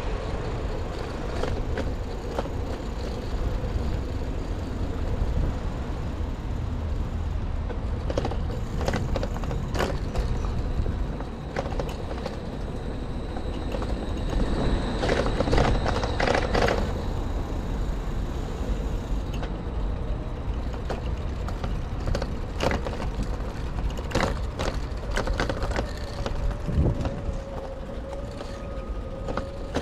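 Street traffic heard from a moving bicycle: engines of passing cars with a steady low rumble, wind on the camera microphone, and scattered sharp clicks and knocks.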